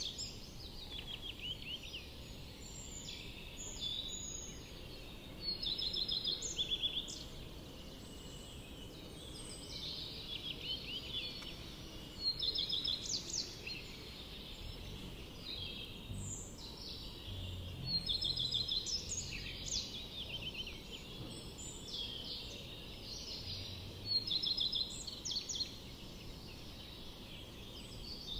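Small birds singing: short trilled, high-pitched song phrases repeated every few seconds over faint background noise.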